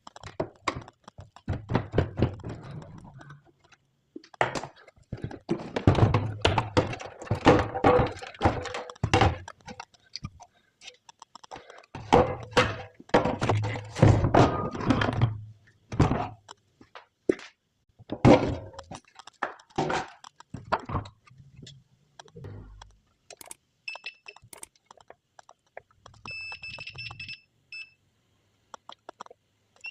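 Repeated knocks and thunks of hard objects being handled, coming in dense clusters, with a few short high beeps near the end.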